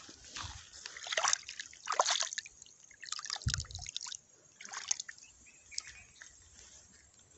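Shallow muddy pond water sloshing and splashing in irregular bursts close to the microphone, as the water is stirred up, with a short low thump about halfway through.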